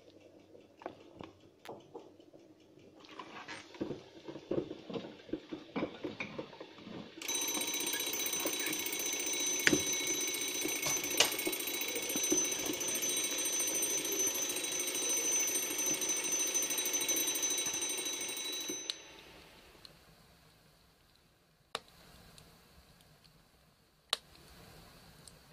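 Mechanical kitchen timer ticking, then its bell ringing steadily for about eleven seconds and cutting off suddenly: the timer going off as the set cooking time runs out. Two faint clicks follow later.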